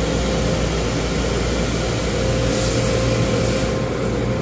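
Steady mechanical running noise of automatic car wash machinery, with a constant hum, and a hiss that swells about two seconds in.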